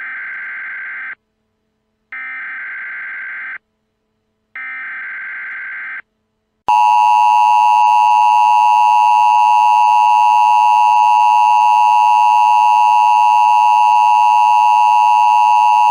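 Emergency Alert System SAME header: three buzzy data-tone sequences, each about a second and a half long, about a second apart. About seven seconds in, the louder, steady two-tone EAS attention signal begins and holds.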